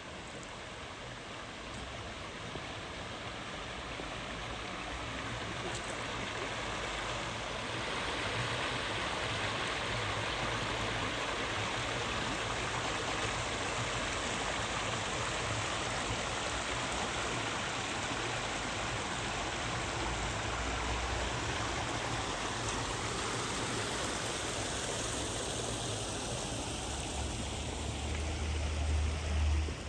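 Stream water flowing: a steady rush that swells over the first several seconds, holds, then eases near the end, with a low rumble in the last two seconds.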